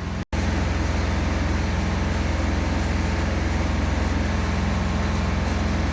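MIG welding arc from a Spartus MIG 210S, a steady, dense crackle with an underlying hum, starting abruptly just after the start.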